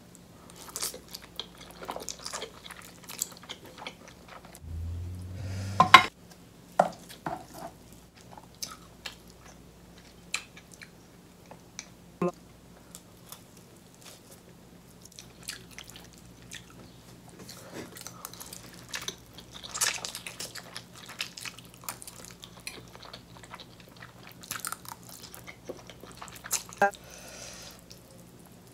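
Close-miked eating: chewing, biting and wet mouth sounds as spicy black bean noodles and king crab with cheese sauce are eaten, with scattered sharp clicks. A brief low hum about five seconds in ends in the loudest knock, at about six seconds.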